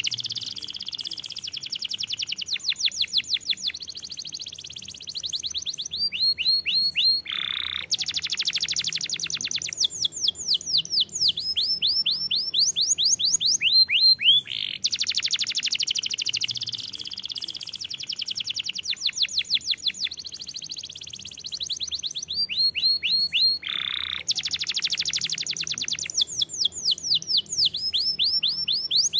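Domestic canary singing nonstop: fast trills alternating with runs of quick, high falling notes, the same sequence of phrases coming round about every eight seconds.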